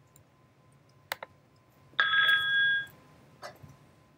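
Cisco SPA 303 IP desk phone ringing for an incoming call: one short electronic ring of steady stacked tones, just under a second long, about halfway through. A couple of faint clicks come before it and one after it.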